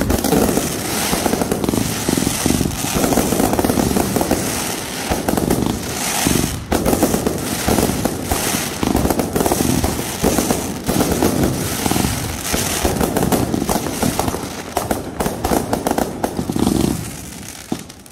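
Consumer aerial fireworks going off in rapid succession: a dense, continuous run of launch pops, bursts and crackling, easing off near the end.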